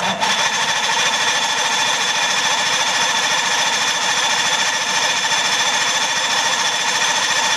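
Electric starter on a 1964 Evinrude outboard cranking the engine steadily without it catching, a fast, even mechanical churning that starts abruptly and stops suddenly near the end. The motor won't fire, with dirt in the fuel system and the primer bulb not firming up suspected.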